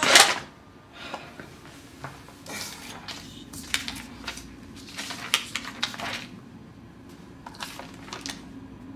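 A sudden loud burst of noise right at the start, then loose sheets of paper rustling and crackling in short bursts as they are handled and gathered up from a floor, over a low steady hum.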